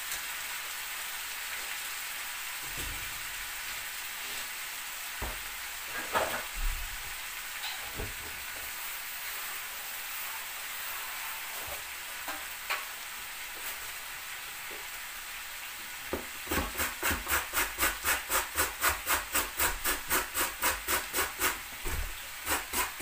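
Diced chicken and potatoes frying in oil in a pan, with a steady sizzle and an occasional clink. From about three-quarters of the way through, a carrot is grated on a metal box grater, about three or four rasping strokes a second.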